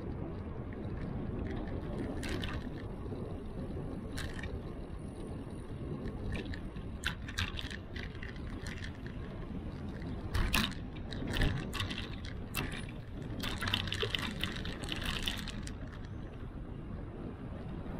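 Steady wind and road rumble on a bicycle-mounted action camera, with scattered rattling clicks and knocks that grow thicker from the middle on, including two louder knocks and a dense run of rattles near the end.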